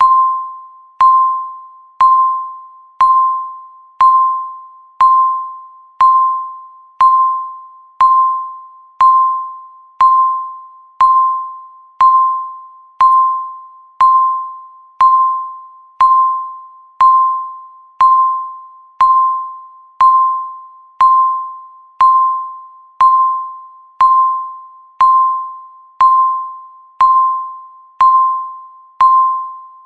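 Countdown timer beeping once a second: one short, single-pitched beep struck sharply each second, each fading away before the next.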